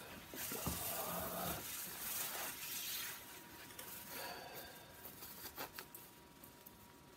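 Fabric rustling from a quilted nylon jacket as a man sits down and settles, loudest over the first few seconds, then softer rustles and a few small knocks.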